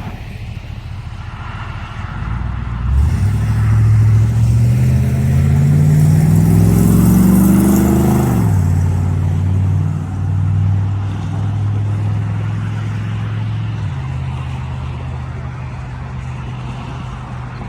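A car engine running, revved up slowly over several seconds, then dropping back sharply to a steady idle.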